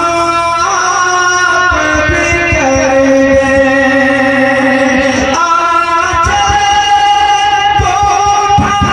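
A man singing a naat, an Urdu devotional song, through a microphone and loudspeakers. He draws out long held notes that glide from one pitch to the next.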